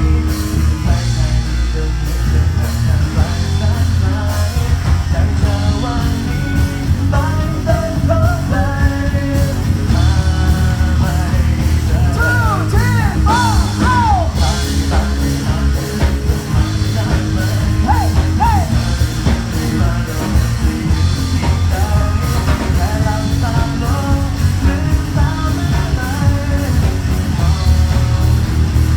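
Rock band playing a cover song: drums, bass and electric guitar with singing, with a run of bending, wavering high notes around the middle.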